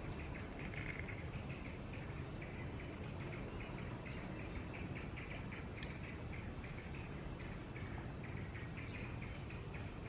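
Outdoor ambience: a steady low rumble under a fast, continuous high chirping, with one faint sharp tick about six seconds in.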